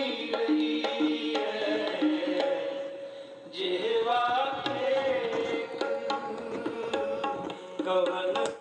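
Indian music with tabla played from a cassette on a Sansui RCD-475 boombox, heard through its built-in speakers. It cuts off suddenly near the end as a cassette key is pressed.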